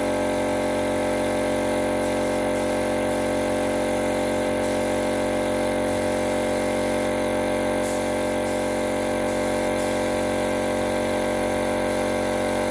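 A machine motor running steadily at a constant speed: an even, unbroken hum with a fixed pitch.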